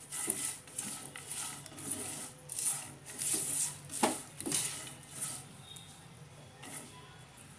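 Slotted spatula stirring and scraping fried peanuts and coconut slices in a nonstick frying pan, in repeated short strokes with a couple of sharp clicks about four seconds in; the strokes grow quieter near the end.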